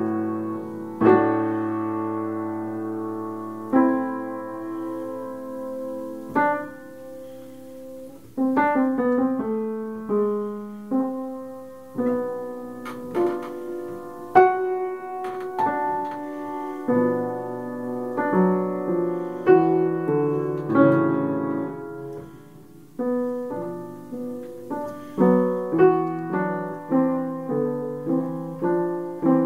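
Solo piano playing a slow, self-composed piece: struck chords that ring on and fade away, giving way to quicker repeated notes in the last third.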